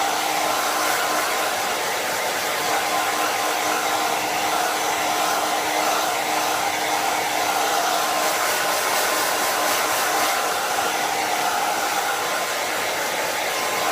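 Jinri 1800 W infrared ionic hair dryer running steadily on its high heat setting: a constant rush of air with a faint steady whine.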